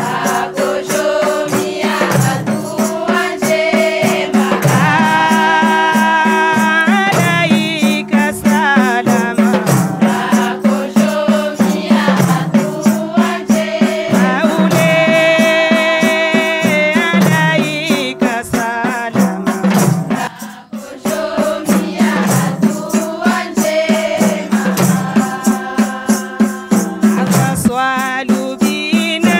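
A group of voices singing a devotional song together, over a steady beat of tambourine-like hand percussion. The singing and beat break off briefly about two-thirds of the way through, then resume.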